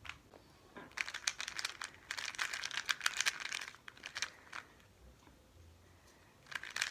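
Rubik's cube being turned fast, a rapid run of plastic clicks and clacks from its layers, stopping for about two seconds and starting again near the end.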